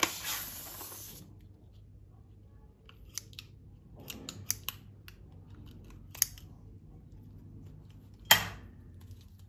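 Light handling sounds: a brief hiss at the very start, then a few short sharp clicks and snips, with one louder snap near the end.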